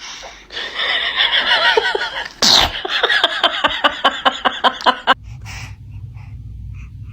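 A baby sneezing: a sudden sharp burst about two and a half seconds in, followed by a quick run of short bursts, about four a second.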